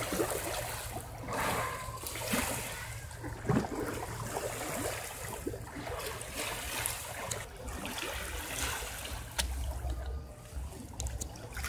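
Small sea waves lapping and splashing irregularly against a rocky shore, with a low rumble underneath.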